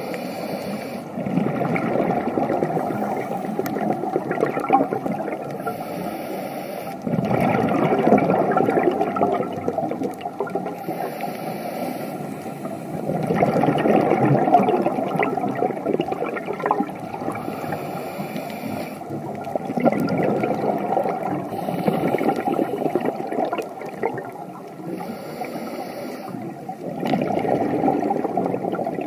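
Scuba diver breathing through a regulator underwater: a short hiss on each inhalation, then a longer rush of exhaled bubbles, repeating about every six seconds.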